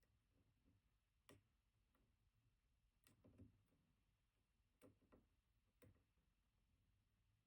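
Faint, scattered clicks and ticks from a pick working the pins of a BKS Janus dimple lock under tension, a handful of separate clicks several seconds apart.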